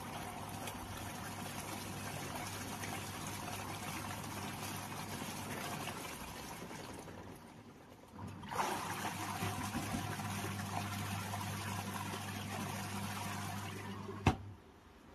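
Semi-automatic twin-tub washing machine draining water on a test run, a steady trickling rush over a low mains hum, showing the repaired machine working again. The flow eases off about seven seconds in, comes back stronger at about eight and a half seconds, and a click near the end is followed by the sound stopping.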